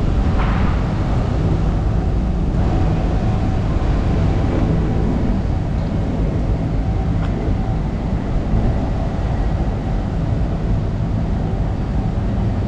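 Passenger ferry's engines running with a steady low drone as it pulls away from the dock.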